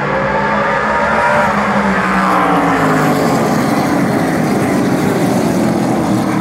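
A pack of SRX V8 race cars at full throttle passing close by, many engine notes overlapping, their pitch sweeping up as they approach and falling away as they go past.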